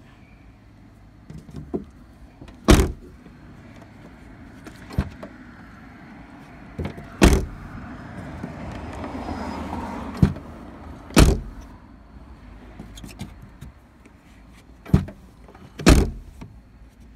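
Toyota C-HR rear hatch being shut again and again: several loud slams a few seconds apart, with smaller knocks between them. The owner reports an abnormal flapping clatter ("batabata") from the hatch as it closes.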